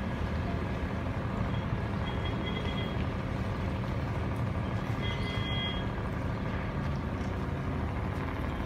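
Large engine running steadily with a low drone, with two short high-pitched beeps about two and five seconds in.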